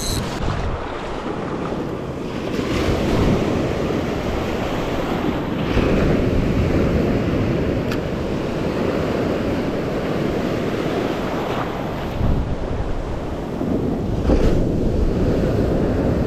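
Small waves breaking and washing through shallow surf, with wind buffeting the microphone; the wash swells and eases a few times.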